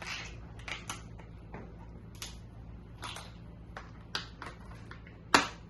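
Scissors snipping through the shell of cooked king crab legs: a string of irregular crisp clicks and crunches, the loudest near the end.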